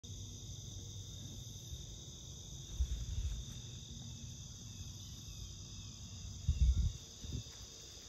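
Steady chorus of crickets and other insects, several unbroken high-pitched trills layered together. Two dull low thumps break in, about three seconds in and again near the end.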